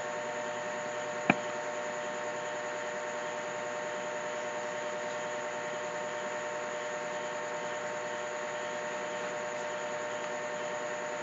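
Steady electrical hum with hiss, the background noise of a computer's microphone. A single mouse click comes about a second in.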